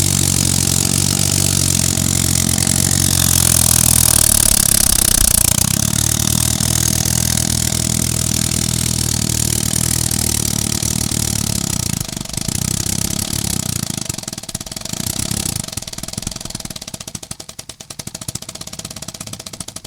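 3D-printed compressed-air piston engine running steadily with a hiss of air, then slowing in the last several seconds, its separate beats spacing out and fading as it runs down.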